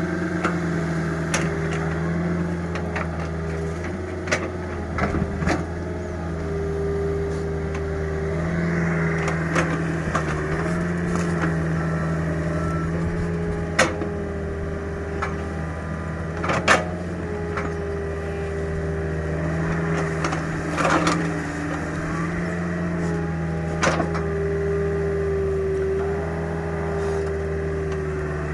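Mini excavator engine running steadily under working load, its pitch dipping slightly now and then as the hydraulics take the strain, with scattered sharp knocks and cracks from the bucket working at the ground and wood.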